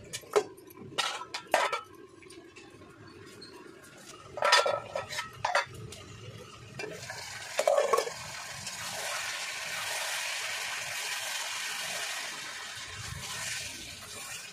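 A metal spatula clinks and scrapes against a steel kadai as chicken curry is stirred. About eight seconds in, a steady sizzling hiss from the hot pan takes over for several seconds.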